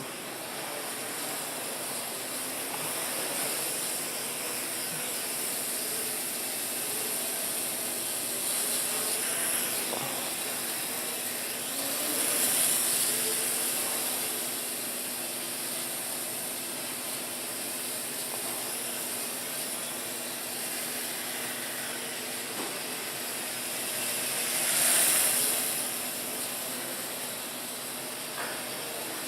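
WL Toys V949 micro quadcopter's motors and propellers whirring steadily in flight, with a hissy whine that swells louder twice, once about twelve seconds in and again near the end.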